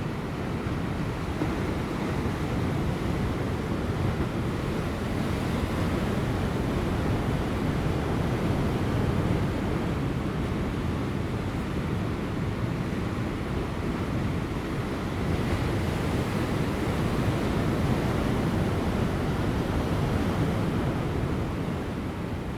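Large ocean waves breaking on offshore rocks near high tide: a continuous rush of surf that swells and eases every few seconds, with light wind.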